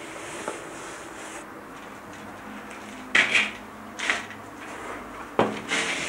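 A few short scuffs and knocks of someone climbing a narrow stone spiral staircase, about three seconds in, again a second later, and twice near the end, over a steady low background.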